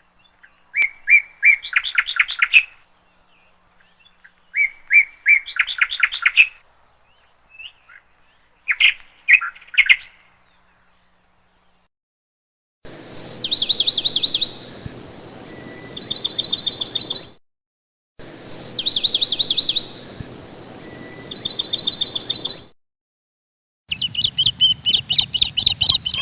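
Parrots chirping in bursts of quick trilled notes. Each burst breaks off into sudden silence, and two bursts near the middle are identical repeats.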